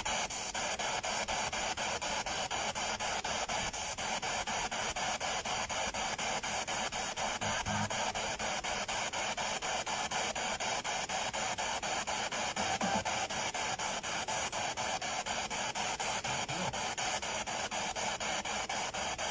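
Spirit box (ghost box) radio sweeping through stations: a steady hiss of static chopped into rapid, even pulses, with a few brief tones breaking through now and then.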